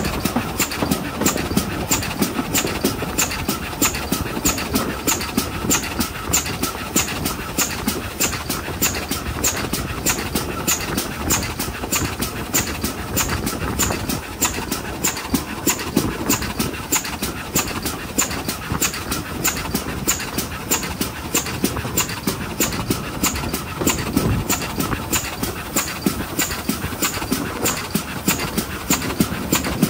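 GWR 4575-class Prairie tank 5552, a two-cylinder 2-6-2T steam locomotive, working its train along the line with a steady, even exhaust beat and the running noise of the train. Wind blows across the microphone.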